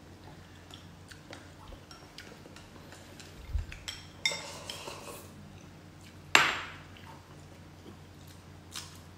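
Eating sounds: chopsticks tapping and clinking against glass bowls and a metal pot, with slurps and sips of noodle broth. One sharp, ringing clink about six seconds in is the loudest sound.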